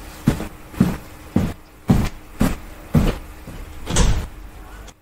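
Footsteps on a hard floor, about two steps a second, walking away at an even pace.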